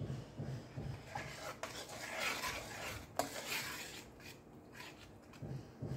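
Steel spoon stirring and scraping around a stainless steel bowl of melted sugar caramel with ghee just added, with two sharp clinks of spoon on bowl.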